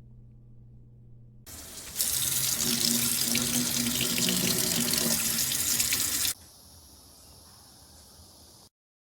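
Water tap opened and running hard for about four and a half seconds, then dropping to a faint hiss. A low steady hum comes before the water starts.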